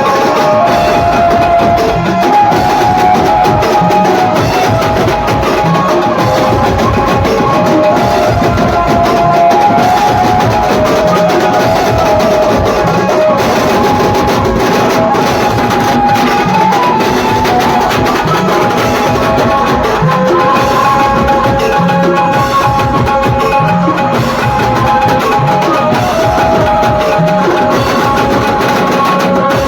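Loud, continuous procession music: drums and percussion beating steadily under a held melody line.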